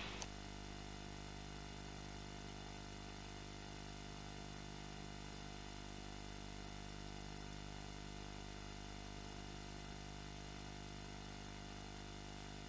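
Steady electrical mains hum with a stack of evenly spaced overtones and a faint hiss beneath, unchanging throughout.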